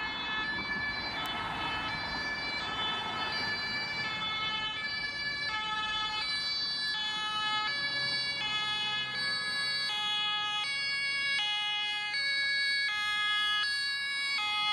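German two-tone emergency siren (Martinshorn) on a Red Cross Mercedes-Benz van, alternating between two pitches about every three-quarters of a second. A steady high tone and traffic noise run beneath it.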